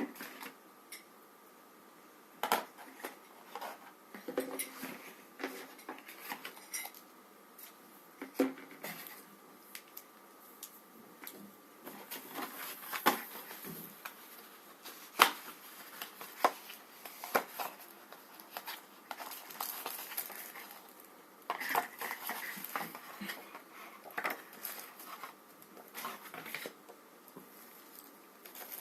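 Hands handling a smartphone box and its contents: irregular clicks, taps and light knocks, with some crinkling of packaging.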